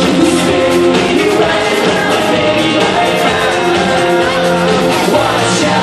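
Live rock band playing a 1980s cover loud, with singing over electric guitars and drums, heard from the crowd.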